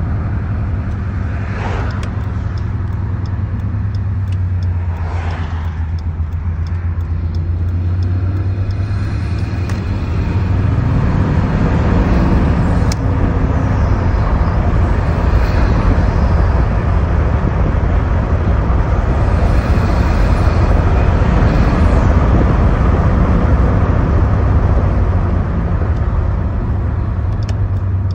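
2014 Jeep Grand Cherokee EcoDiesel's 3.0-litre V6 turbodiesel, fitted with a K&N air cleaner and CXR intercooler piping, heard from inside the cabin while driving: a steady low rumble that climbs in pitch and gets louder about ten seconds in, then holds.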